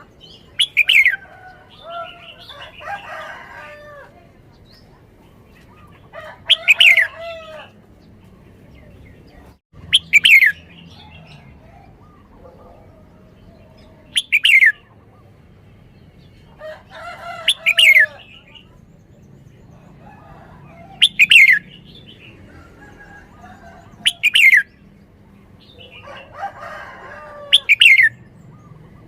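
Red-whiskered bulbul singing: a loud song phrase repeated about every three to four seconds, each made of sharp falling whistles, some with a lower warble.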